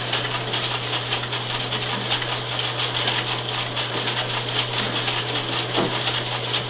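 Steady hiss and crackle with a constant low hum: background line noise of a rocket launch countdown communications recording, heard in a gap between callouts.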